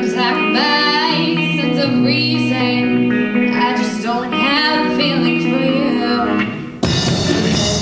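Live band playing a pop-rock song, with guitar and singing. Just before the end the sound drops briefly, then the full band comes in louder and fuller, with more bass.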